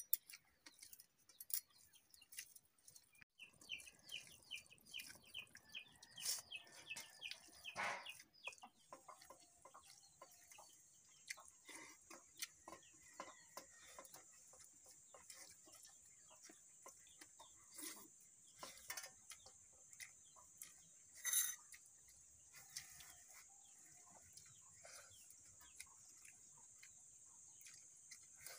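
Faint sounds of eating by hand from steel plates: scattered small clicks and scrapes of fingers and food on metal, with one sharp clink about 21 seconds in. Birds call faintly, a quick run of repeated calls in the first quarter, and a steady high hiss sets in about nine seconds in.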